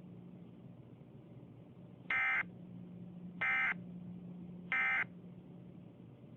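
Emergency Alert System SAME end-of-message code: three short, identical warbling data bursts about a second apart. They mark the close of the broadcast alert. They play over a faint steady hum and hiss of radio static.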